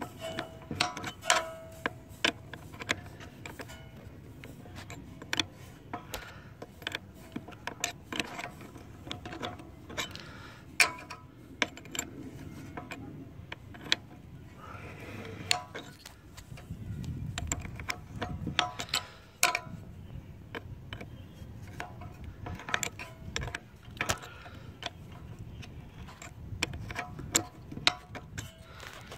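Steel combination wrench clicking and clinking against the brass fuel shutoff solenoid nut on a carburetor bowl, in short irregular taps as the nut is worked loose a little at a time.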